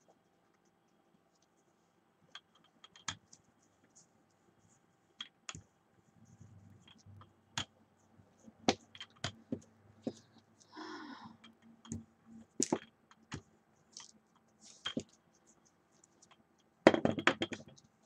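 Scattered clicks and taps of tools and materials being handled on a craft table, with a short rustle about eleven seconds in and a denser clatter near the end.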